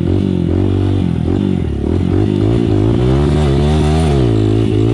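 Motocross bike engine revving under throttle for a wheelie. The revs waver, climb to their highest about three to four seconds in, then drop back.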